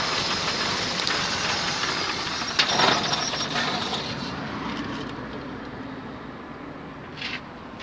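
Petrol car engine running, heard close up in the open engine bay, a steady mechanical noise that fades over the second half. A short sharp click sounds near the end.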